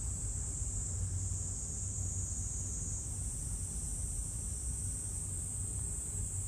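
Steady, high-pitched chorus of insects droning without a break, over a low, steady hum.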